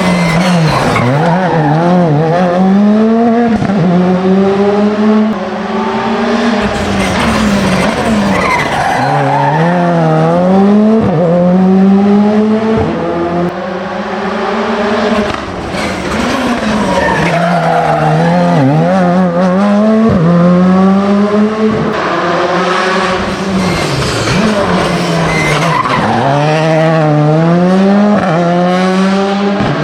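Rally cars racing through a special stage, engines revving hard, the pitch climbing and dropping again every few seconds as they accelerate, lift and change gear.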